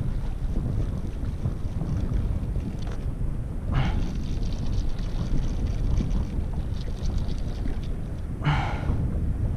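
Wind buffeting the microphone as a steady low rumble, with two short vocal sounds, one about four seconds in and one near the end.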